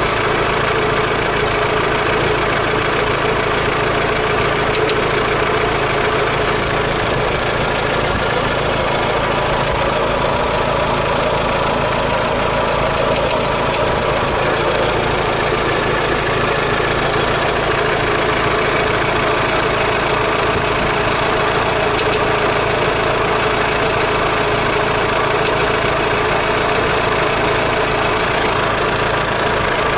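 Daewoo Lanos 1.6 16V four-cylinder engine idling steadily with a knock in it that appeared after the head gasket was replaced and the head skimmed; the owner is unsure whether the repair was botched or a timing-belt idler or tensioner roller has failed.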